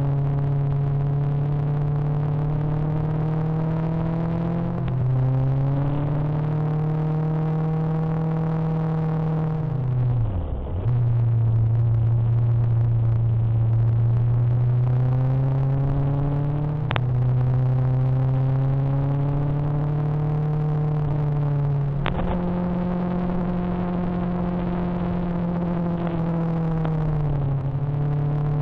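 Motorcycle engine running steadily while riding, its pitch stepping down and up several times with gear changes and throttle, with one deep brief drop in revs about ten seconds in and two sharp clicks later on.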